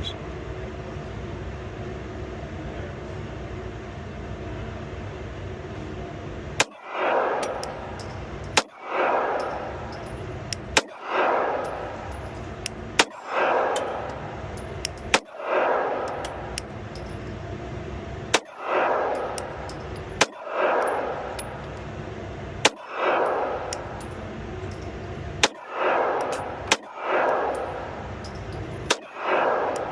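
A Glock 43X 9mm pistol fired slowly at about two-second intervals, roughly eleven shots in all, each shot echoing in an indoor range. The first several seconds are only the steady hum of the range before the shooting starts.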